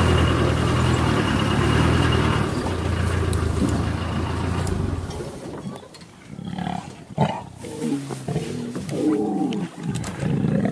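Lions growling in a string of short growls that start about five seconds in. For the first couple of seconds a vehicle engine idles steadily.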